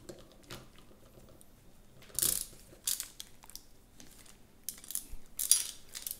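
Clicks and rattles of small parts and hardware being handled, in short bursts about two seconds in, near three seconds and again around five seconds.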